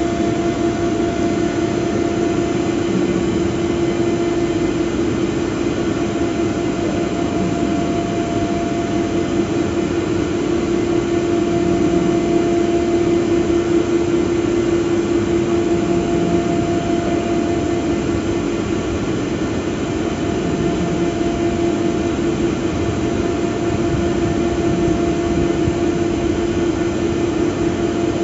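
Dam gantry crane's electric hoist running steadily as it lowers a stoplog into its guides: a constant mechanical drone with a steady hum.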